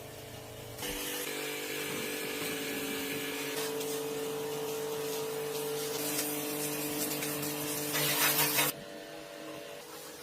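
A power tool running steadily for about eight seconds. It starts about a second in, shifts pitch slightly a couple of times, gets louder and harsher just before it stops suddenly near the end.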